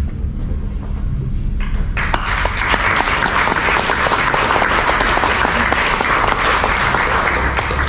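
Applause from a small audience and panel, breaking out about two seconds in as a dense patter of many hands clapping.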